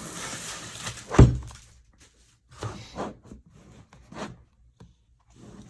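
Plastic packaging crinkling, then one loud thud as something is set down about a second in, followed by a few light knocks and clicks from handling a tool and its case.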